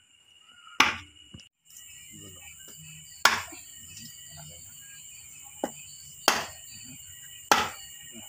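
Knife chopping through a whole fish into steaks on a wooden cutting board: about five sharp chops, one every second or two.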